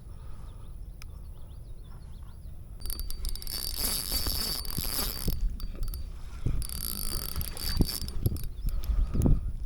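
Fishing reel whirring with a thin high whine, in two spells: one of about two and a half seconds starting about three seconds in, and a shorter one near seven seconds.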